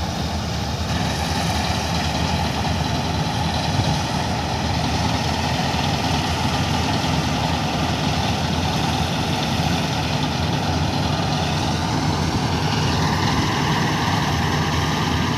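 Kartar 4000 combine harvester running steadily while cutting standing wheat: a continuous drone of its engine and threshing machinery. A higher whine in it rises in pitch about thirteen seconds in.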